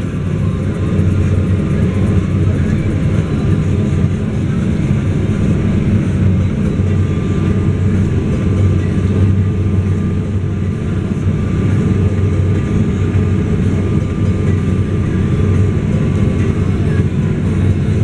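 Fendt 939 tractor's six-cylinder diesel running steadily under load while pulling a seed drill, heard from inside the cab, with a faint steady whine above the engine note.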